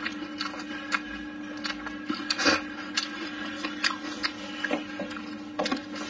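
Close-up mouth sounds of eating braised pork trotter: irregular wet chewing clicks and lip smacks, with a louder one about two and a half seconds in, over a steady low hum.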